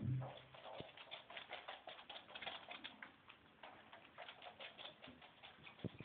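Rapid, irregular light tapping and scratching of small animals' claws as puppies and a marmoset scramble about at play. A brief low sound right at the start is the loudest moment, and there is a sharper tap near the end.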